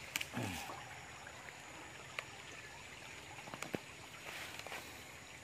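Faint steady rush of a small river flowing, with a few sharp clicks scattered through it and a short falling voice-like sound just after the start.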